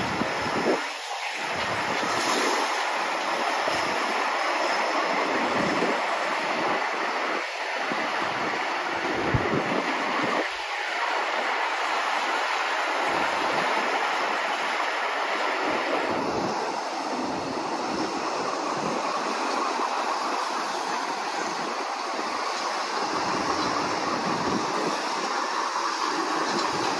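Empty steel-mesh sugarcane bins of a 2 ft gauge cane train rolling past close by: a steady noise of wagon wheels running on the rails.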